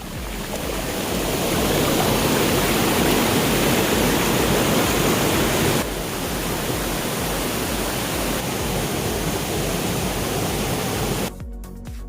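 Waterfall rushing, a loud steady hiss of falling water. About halfway through it drops slightly in level, and near the end it cuts to background music.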